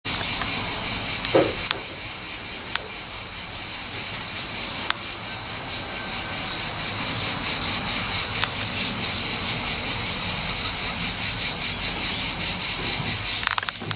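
A chorus of cicadas buzzing steadily, with a fast, even pulsing, and a few faint clicks over it.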